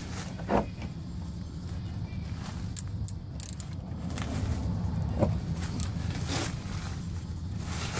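Ratchet and 17 mm socket working loose a car's oil drain plug: a few scattered metal clicks and short scrapes over a steady low rumble.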